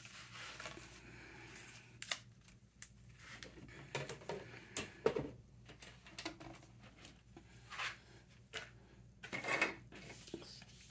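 Rubber or clear stamps, an ink pad and paper being handled for stamping: scattered light clicks, taps and paper rustles, with a few sharper knocks about five seconds in and again near the end.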